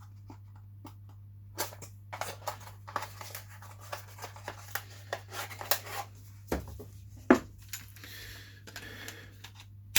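Hard plastic clicks, scrapes and rustling as a 12 V cordless ratchet and its battery pack are handled, with a sharp snap about seven seconds in.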